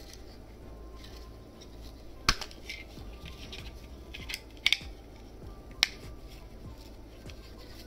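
Hard plastic parts of a Super Minipla robot kit clicking as a piece is pulled off and snapped into place by hand. There are a few sharp clicks: one about two seconds in, a quick double click a little after the middle, and one more a second later, with softer handling ticks between them.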